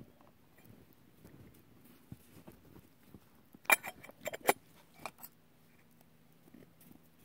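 A metal camp pot's lid clinking against the rim as it is lifted off: a quick cluster of four or five sharp metallic clicks a little after halfway, with a softer one just after.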